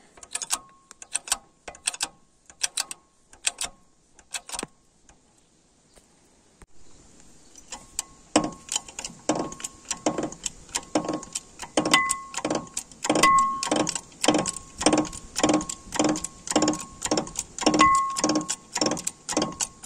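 Hydraulic bottle jack being pumped by hand to press a new bushing into a tractor's frame pivot: a steady clicking and clanking of the pump stroke at about two strokes a second. It breaks off for a couple of seconds partway through, then the strokes come louder, many with a short metallic ring.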